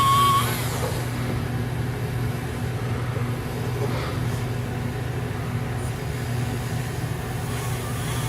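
Small electric motor of a graver-sharpening wheel running with a steady low hum. A high steady whine over it stops about half a second in.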